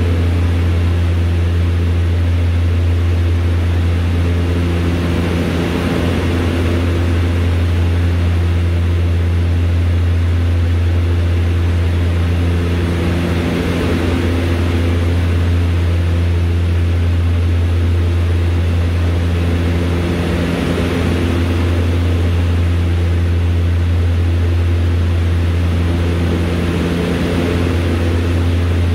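DHC-6 Twin Otter's Pratt & Whitney Canada PT6A turboprop engines and propellers in cruise, heard inside the cabin as a loud, steady low drone. Above it, a higher hum swells and fades about every seven seconds.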